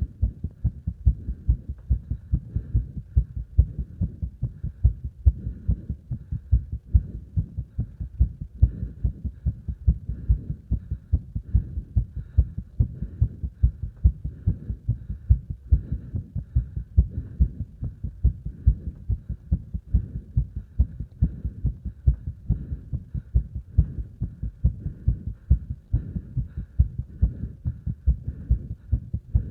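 Human heart sounds during exercise: a fast, regular heartbeat of low thumps, with heavy breathing sounds mixed in.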